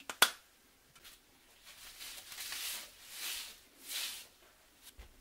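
A sharp knock right at the start, then a folded paper towel rubbed over a glazed ceramic plate, wiping oil across it in three or four swishing strokes.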